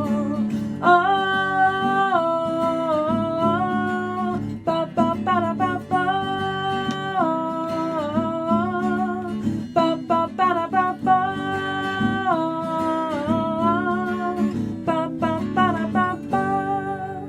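Acoustic guitar playing the song's closing outro under a held wordless vocal melody, which stops near the end, leaving the guitar ringing out and fading.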